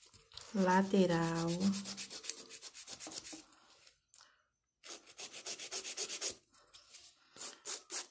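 Manual nail file rasping back and forth over a gel nail extension in quick strokes, several a second, shaping the sides of the nail. The filing stops for about a second midway, then starts again.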